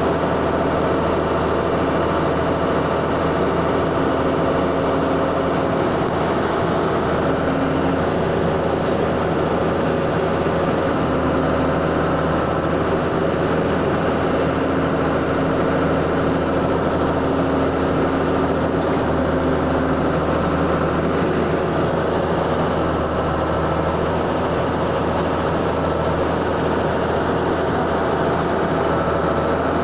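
Powered ground-digging drill running steadily: a constant, loud machine drone with a steady hum.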